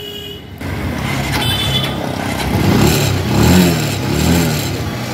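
Motorcycle engine running and revved up and down three times, then settling back toward a steady idle.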